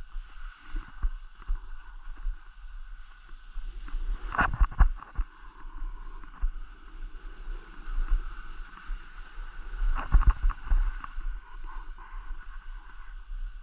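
Wind rumbling on the microphone, with two louder bouts of scraping and sliding on snow about four and ten seconds in.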